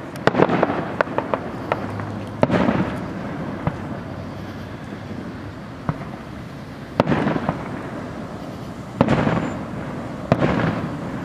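Aerial fireworks shells bursting overhead: about five loud booms a few seconds apart, the first followed by a run of sharp crackles.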